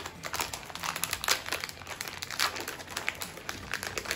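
Plastic snack packet crinkling as it is pulled open and handled: a run of irregular crackles, a few of them louder.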